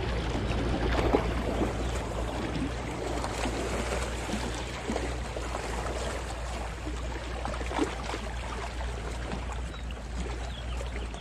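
Small lake waves lapping and splashing irregularly against the rocky shoreline, over a steady low rumble.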